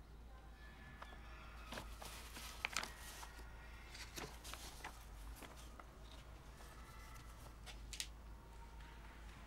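Faint rustling of paper and small knocks as papers are picked up and handled at a desk, with a couple of sharper clicks about three seconds in and another near the end.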